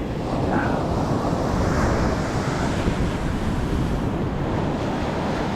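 Ocean surf breaking and washing up the beach, a steady rushing that swells slightly about a second in, with wind rumbling on the microphone.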